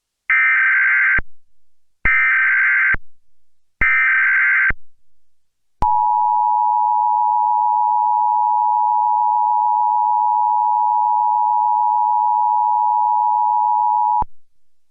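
Emergency Alert System SAME header: three short bursts of rapid two-pitch data tones. These are followed by the EAS attention signal, a steady two-tone chord of 853 and 960 Hz held for about eight seconds that cuts off abruptly.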